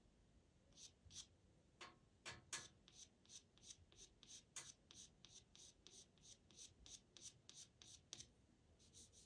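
Faint scratching of a pastel pencil on Pastelmat paper in short, quick hatching strokes, about three a second, with a brief pause near the end.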